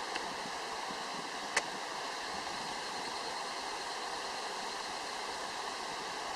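Steady rush of a river's flowing water, with one short click about a second and a half in.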